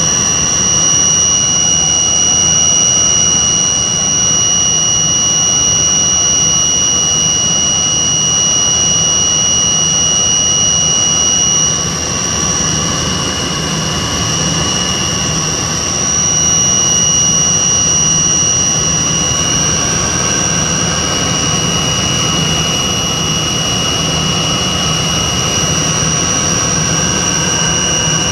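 Tupolev Tu-134B-3 airliner in flight, heard from the cabin: its two rear-mounted Soloviev D-30 turbofans run with a steady rush and a high two-tone whine. The sound dips slightly about twelve seconds in, and the whine shifts a little before it steadies again.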